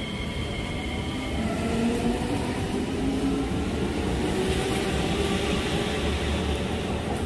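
Singapore MRT train pulling away, its motor whine climbing steadily in pitch over wheel and rail noise. A high steady tone fades out about a second and a half in.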